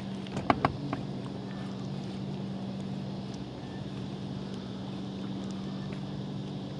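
Electric bow-mounted trolling motor running with a steady low hum, with a couple of sharp clicks about half a second in.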